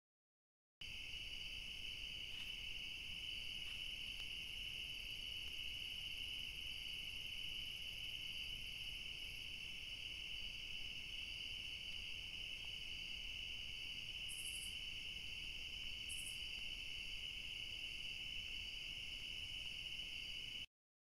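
Steady night chorus of crickets and other insects, a continuous shrill trilling with no break in it. It starts after a moment of silence and drops out briefly near the end, where one camera clip gives way to the next.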